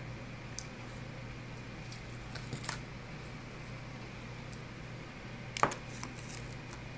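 Small clicks and crinkles of candies being handled and a plastic candy bag rustling, in a few short clusters with the loudest about five and a half seconds in, over a steady low hum.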